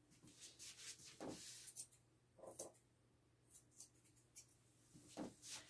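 Faint, irregular scratching strokes and soft snips from a comb and grooming shears working through a standard poodle's curly coat while the rosette is shaped.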